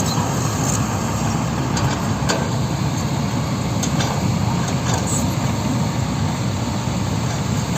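Heavy diesel earth-moving machinery running steadily, a low, dense engine noise with a few faint clanks.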